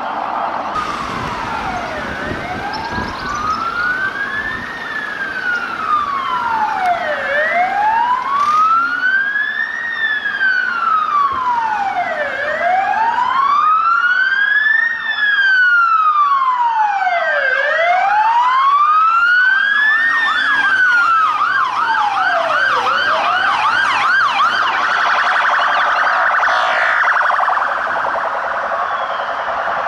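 Sirens of a convoy of armoured police Land Rovers, more than one wailing at once in slow rises and falls about every five seconds. About two-thirds of the way through, one switches to a fast yelp.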